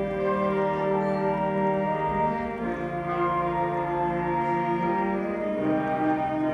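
High school band playing a slow passage of held chords, the notes changing every second or two.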